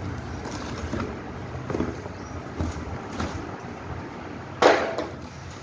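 Cardboard boxes being handled: short rustles and scrapes of corrugated cardboard as a fan's inner box is pulled out of its carton, with one louder scrape or thump near the end, over a low steady rumble.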